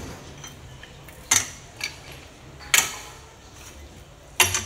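Sharp metallic clanks from a steel drill pipe and pipe wrench at a hand-operated soil-test boring rig: three loud clanks about a second and a half apart, with a softer one after the first.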